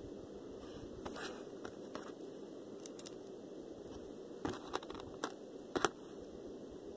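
Scattered small clicks and crinkles of packaging being handled, over a steady low hum. A quick run of sharper clicks comes about four and a half to six seconds in.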